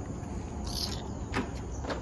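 Insects buzzing steadily in the forest trees, with a short high bird call under a second in and two light knocks near the end.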